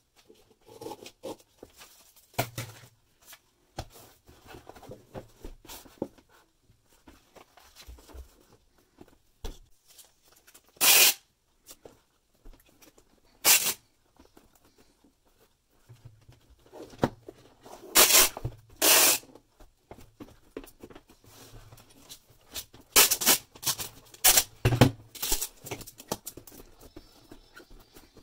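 Packing tape pulled off a tape dispenser in several short, loud ripping bursts and torn off, with quieter rustling of paper and cardboard handling between the rips.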